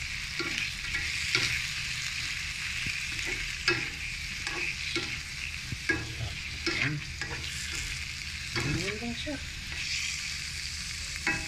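Whiteleg shrimp with onion, chili and garlic frying in a wok: a steady sizzle, broken by the scattered knocks and scrapes of a slotted spatula stirring them against the pan.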